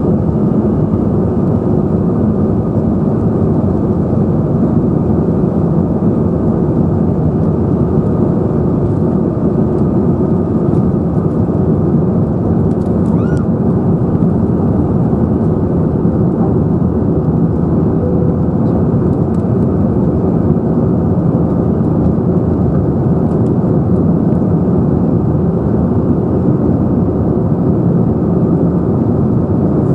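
Steady low rumble of an Airbus A321's CFM56 jet engines and rushing air, heard inside the passenger cabin; the level holds even throughout.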